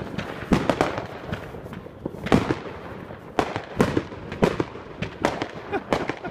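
Consumer firework batteries (cakes) going off: an irregular run of sharp bangs, a couple or more a second, with crackling between them.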